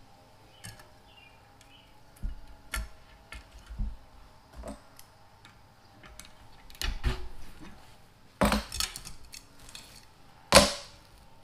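Steel bicycle tools clinking and knocking against a Shimano 105 cassette as a lockring tool, chain whip and wrench are fitted and worked to loosen the cassette lockring. Scattered metallic clicks and clanks, the loudest a sharp clank near the end.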